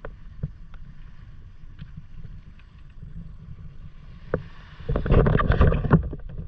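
Shallow water lapping and sloshing right at a camera held at the surface, over a low wind rumble. About five seconds in there is a louder patch of splashing and knocks lasting around a second.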